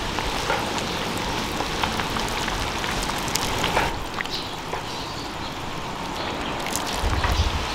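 Large wok of noodle soup simmering: a steady crackling hiss of bubbling broth with scattered small clicks and splashes as the ladle and tongs work through it. A brief low rumble comes near the end.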